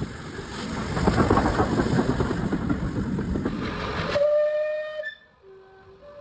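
Steam locomotive running with a dense rush of noise that cuts off suddenly about four seconds in. A steam whistle then blows one steady note, followed by a shorter, lower note.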